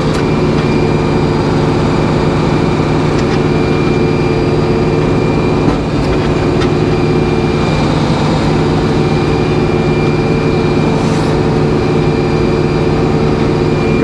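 Sawmill's power unit and hydraulics running with a steady drone while the log loader rolls a telephone pole onto the carriage, with a small knock about six seconds in.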